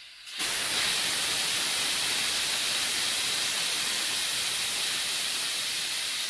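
Air hissing steadily out of a compact tractor's rear tire through the open valve stem, starting suddenly about half a second in as the valve stem comes out: the tire deflating.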